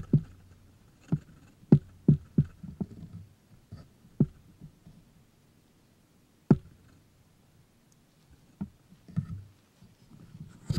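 Camera-handling noise: irregular sharp clicks and knocks, about nine in ten seconds with long gaps between some of them, and low rumbles near the start and again near the end.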